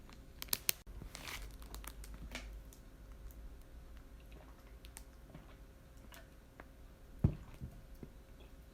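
Close-up eating sounds of yakitori: two sharp clicks, then a couple of seconds of crunchy chewing with scattered small clicks, and a dull thump about seven seconds in.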